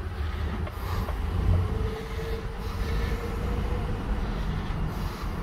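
Pickup-based tuff truck's engine running at low speed, a steady low rumble heard from inside the cab, with a faint whine for a couple of seconds midway.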